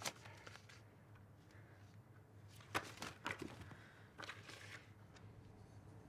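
Faint rustling and crinkling of paper and photographs being handled, a few short crisp crackles spread through, over a low steady hum.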